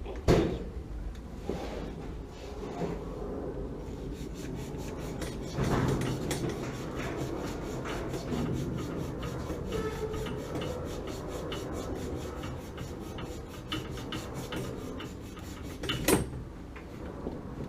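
Quick, evenly repeated rasping strokes of a hand tool working on material, with a sharp knock just after the start and another near the end.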